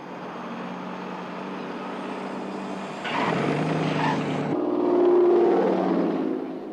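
Vehicle engines running as in a driving scene, steady at first, then changing pitch about three seconds in. A sudden cut about four and a half seconds in brings a higher, louder engine note, the loudest part, which then eases off.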